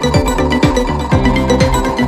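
Background music: upbeat electronic track with a steady kick-drum beat and bass line.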